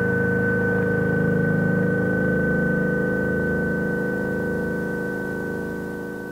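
Ambient music drone from a four-track cassette recording: a steady high tone held over lower sustained notes. It slowly fades from about halfway through.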